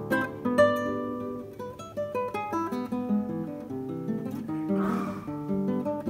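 Classical guitar played solo: a quick fingerpicked melody of single plucked notes over ringing bass notes, in the lilting style of a Brazilian choro.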